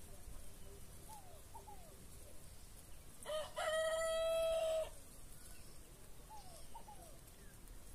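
A rooster crowing once, about three seconds in: a short rising note, then a long held note of about a second and a half. A few faint short calls sound before and after it.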